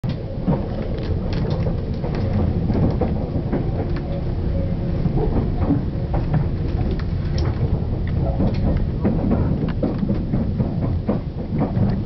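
Interior of a 485-series electric express car rolling along: a steady low rumble of wheels on track, with frequent irregular clicks and clatter from the running gear.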